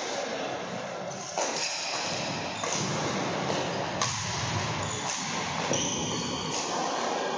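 Badminton rackets striking the shuttlecock about once a second during a doubles rally, over a steady rushing noise.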